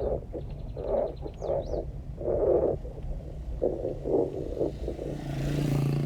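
Vehicle engine running while driving over a rough road, with irregular bumps and jolts; a louder vehicle sound swells up near the end, as of another vehicle passing close by.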